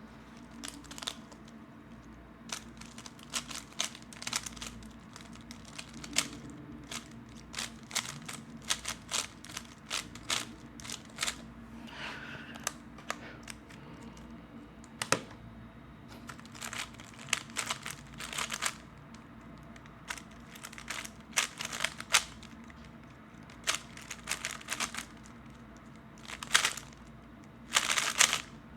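3x3 speed cube being turned fast by hand: clusters of quick plastic clicks and rattles, broken by short pauses.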